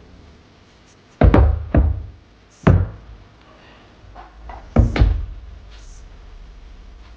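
A series of heavy knocks and thumps, irregularly spaced: the last two come close together, about 5 seconds in. This is hard items being handled and set down while the speakers and their accessories are unboxed.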